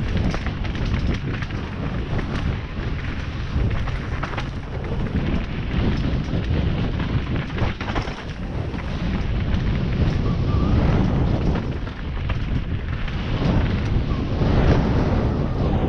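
Mountain bike (Specialized Stumpjumper) riding fast down a dirt trail: steady wind rush on the microphone, with tyres on dirt and leaves and scattered knocks and rattles as the bike goes over bumps.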